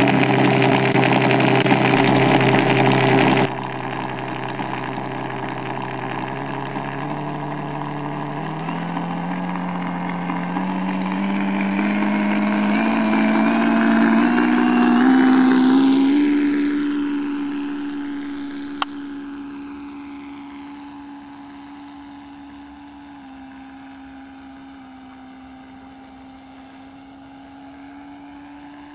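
Benedini sound system playing a simulated Rolls-Royce Merlin engine through overdriven speakers that saturate and distort. The engine note climbs in steps for about 16 seconds, then holds steady while it fades. There is one sharp click near the end.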